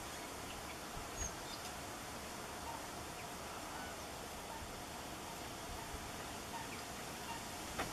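Steady outdoor background hiss with a few faint, brief bird chirps now and then.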